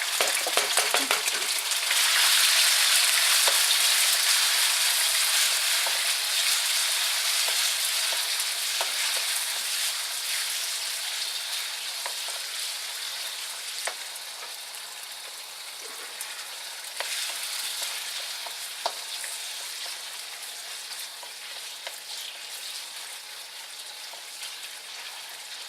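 Marinated chicken pieces sizzling in oil in a non-stick wok as they are stir-fried with a wooden spoon. The sizzle jumps up about two seconds in and then slowly dies down, with a few light knocks, a fading the cook takes as a sign that the pan is not hot enough.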